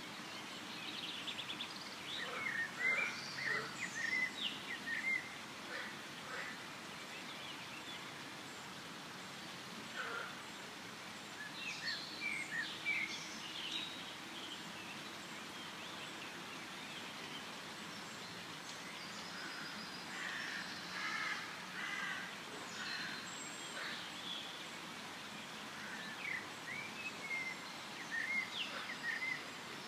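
Forest ambience: several small birds chirping and whistling in bursts of a few seconds over a steady, faint background hiss.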